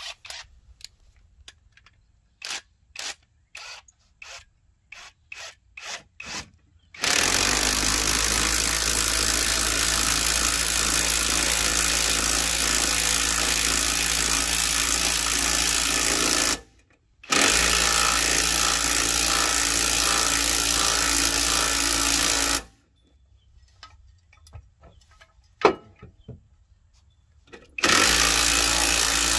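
Cordless impact wrench on the front control arm bolts: a string of short trigger blips over the first seven seconds, then long runs of steady hammering, about ten seconds and five seconds long, with a brief gap between them. Near the end it starts hammering again after a pause with a few clicks and one sharp knock.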